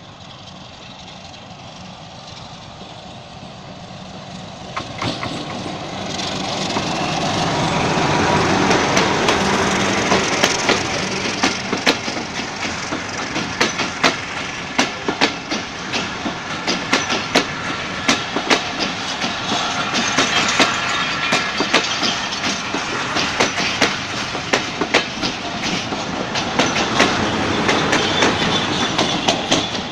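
Diesel-hauled passenger train led by a WDM-3A locomotive passing close by. The sound builds over the first several seconds, then the coach wheels clatter over the rail joints in a long run of sharp clicks.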